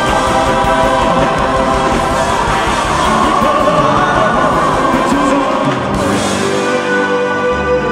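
Live band music with singing and backing vocals. About six seconds in the drums drop away, leaving held chords.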